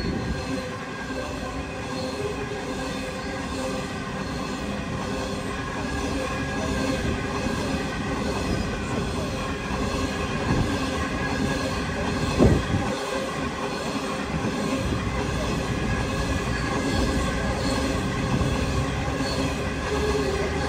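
A train running on the tracks with a steady squeal of wheels on rail throughout, and a sharp knock about twelve seconds in.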